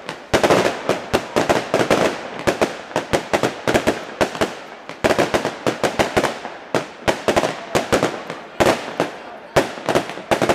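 Fireworks display: a dense, rapid string of sharp bangs and crackles from rising comets and bursting aerial shells, several a second, thinning briefly just before the middle and then picking up again.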